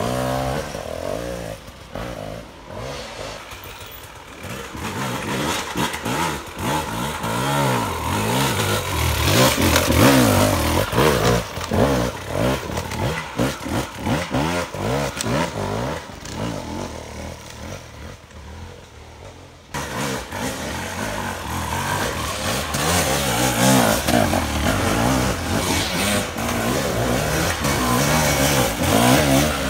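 Enduro dirt bikes ridden past one after another, engines revving up and down with the throttle. The sound changes abruptly about two-thirds of the way through as another bike takes over.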